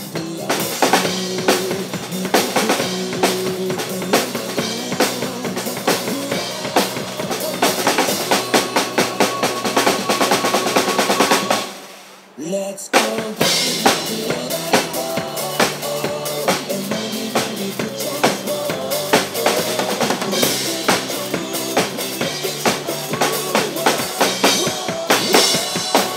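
Acoustic drum kit played hard, with busy kick, snare and cymbal work over accompanying recorded music. The music cuts out for about a second roughly halfway through, then the drumming comes straight back in.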